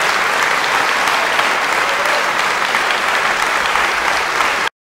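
Concert hall audience applauding steadily; the applause cuts off suddenly near the end.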